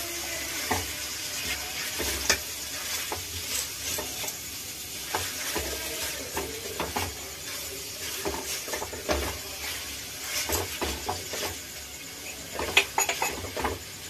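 Marinated chicken pieces sizzling in hot oil in a frying pan over high heat, with a metal spatula scraping and knocking against the pan as they are stirred and turned. A quick run of sharper knocks comes near the end.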